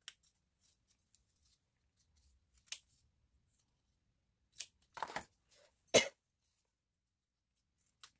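Scissors snipping pieces of a paper-pulp egg carton: a handful of short separate cuts, spread out, with a cluster of them about five to six seconds in.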